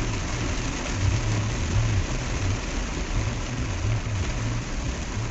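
Truck driving in a heavy downpour: a steady hiss of rain and wet tyres on the flooded road, over the low rumble of the engine.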